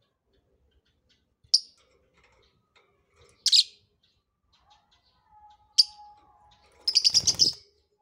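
Soft blue Biola mutation lovebird giving sharp, shrill single chirps, three of them a couple of seconds apart, then a quick run of about eight chirps near the end.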